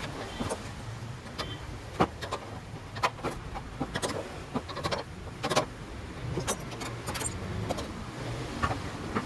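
Scattered light clicks and knocks of hand work on a gas stove's metal parts, at an uneven pace, over a low steady hum.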